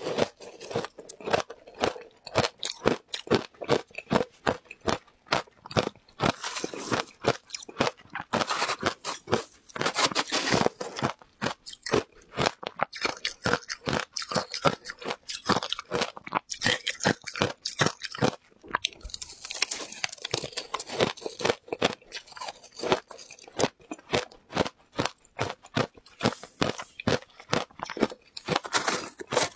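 Shaved ice with passion fruit pulp and seeds being crunched and chewed in the mouth: a dense run of crisp crunches with a few short pauses.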